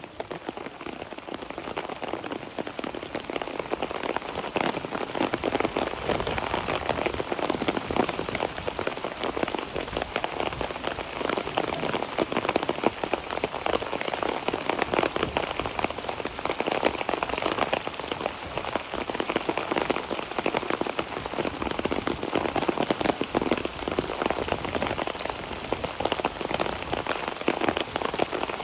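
Heavy rain falling steadily: a dense patter of drops that grows a little louder in the first few seconds and then holds.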